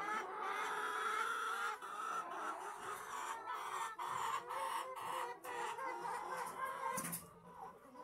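A flock of red shaver laying hens clucking, many overlapping calls at once, with a few sharp clicks scattered through.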